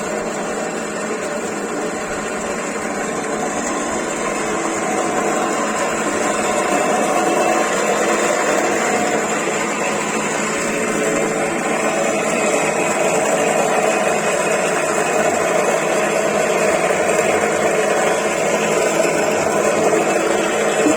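Woodworking drilling-and-slotting (boring and mortising) machine running steadily under its electric motor after being switched on, a dense mechanical whir with a thin high whine, growing slightly louder over the first several seconds.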